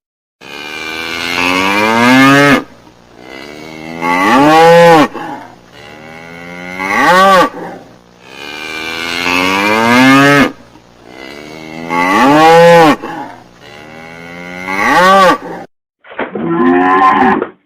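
A cow mooing, about seven long moos one after another with only short breaths between them; the pitch of each call swings down and back up. The last call, near the end, is shorter.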